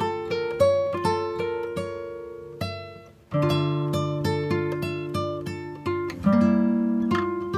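Acoustic guitar music: a run of plucked notes, each fading after it is struck, with a short break about three seconds in before a new phrase begins.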